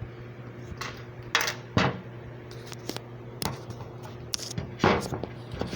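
Scattered light taps and clicks from handling multimeter test probes and leads against an LED backlight strip, over a steady low hum.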